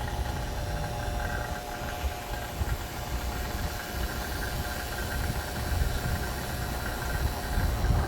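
Air conditioner's outdoor condensing unit running steadily during refrigerant charging: a steady mechanical hum with a low rumble and a few steady tones.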